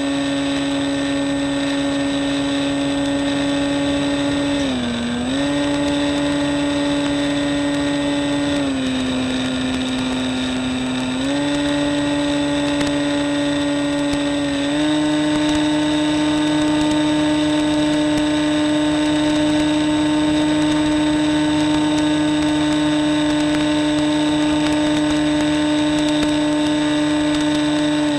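Electric motor and propeller of a Reely Phönix RC motor glider running under power, a steady whine whose pitch follows the throttle. It dips briefly about five seconds in, drops lower for a couple of seconds, then steps up again and rises once more near the end.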